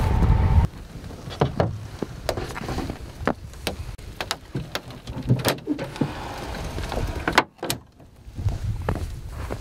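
A steady low rumble that cuts off suddenly under a second in, followed by a string of irregular clicks, knocks and rustles.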